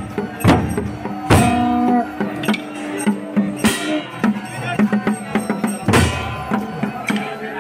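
Procession drums: several large barrel drums beaten with sticks in an uneven, busy pattern, with a short horn blast about a second and a half in.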